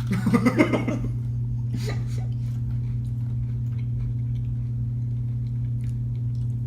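A steady low electrical hum, with a short pulsed burst of voice, like a laugh, in the first second. After it, faint scattered crunching clicks of an Oreo cookie being chewed.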